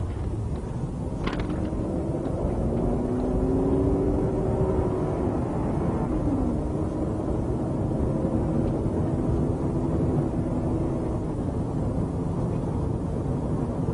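A police patrol car's engine and road noise while it drives, heard from inside the car. The engine tone climbs a little over the first few seconds and then holds steady. There is a short click about a second in.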